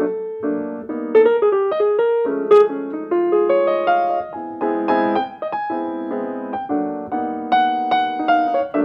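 Piano playing a flowing run of chords and single notes.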